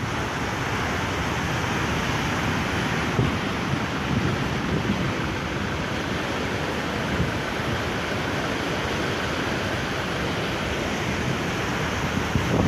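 Storm surf washing over a seafront pavement: a steady rush of churning white water that swells slightly now and then.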